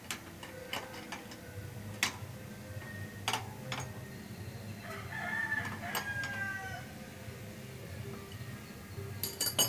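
Scattered sharp metal clicks and knocks as a wrench tightens the bolt of a motorcycle's rear brake torque arm. A rooster crows once in the background, from about five seconds in for roughly two seconds.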